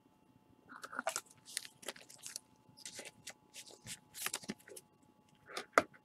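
Trading cards being handled in nitrile-gloved hands: irregular papery rustles and short scrapes as cards are slid and shuffled, with one sharp click near the end.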